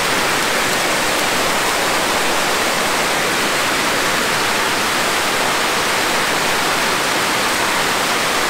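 Torrential rain falling: a dense, steady hiss of a heavy downpour.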